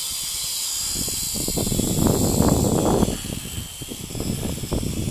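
Syma X5 quadcopter's small motors and propellers running with a steady high whine, while gusts of wind buffet the microphone, heaviest about two to three seconds in.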